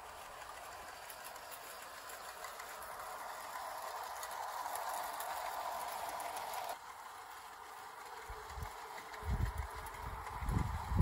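Battery-powered tinplate 0 gauge model train, an LNER G5 tank locomotive with tinplate coaches, running along metal garden-railway track: a steady rolling rumble and motor whirr that grows louder as it approaches. It changes abruptly about two thirds of the way through, and a few low thumps come near the end as the train passes close by.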